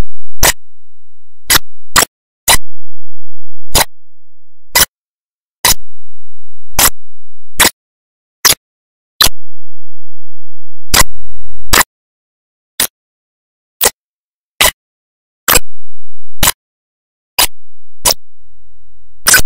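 A series of sharp, isolated clicks at uneven intervals, roughly one a second, with nothing else heard between them.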